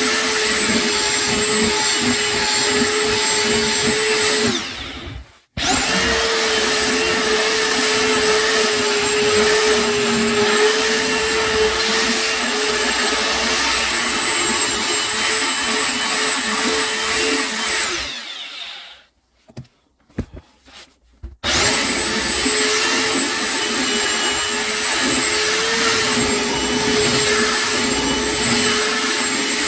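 Electric power sander running steadily with a hum, sanding a wooden table top. It winds down about four seconds in and starts straight back up, then stops again past the middle, with a few small knocks in the pause, before starting up again about three seconds later.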